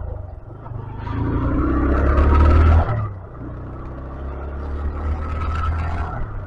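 125cc motorcycle engine accelerating, its pitch rising to a peak and dropping sharply about three seconds in as the throttle closes, then rising again near the end.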